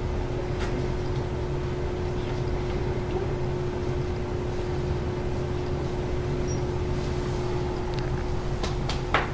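A steady machine hum with a constant mid-pitched tone running under it. There are a few faint clicks, the clearest near the end.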